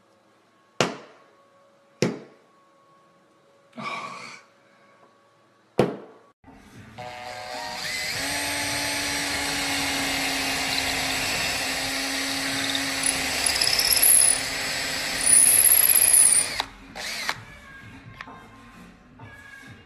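Cordless drill running steadily for about ten seconds as it bores a hole, with two brief high squeals near the end before it stops. It is preceded by three sharp knocks.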